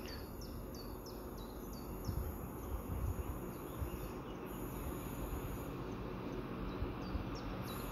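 Quiet outdoor ambience: a steady low rumble under a short, high, falling chirp that repeats about twice a second, like an insect or small bird.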